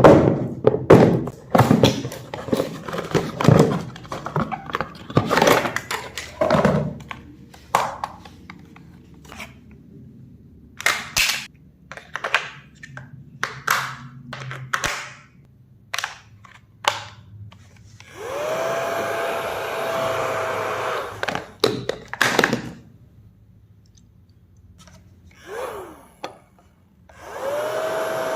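Plastic clatter and clicks from a toy gun being handled, then the battery-powered motor of a toy bubble/water machine gun whirring in bursts. Each burst spins up with a rising whine and then runs steady for about three seconds; the longer bursts come about two-thirds of the way in and again near the end.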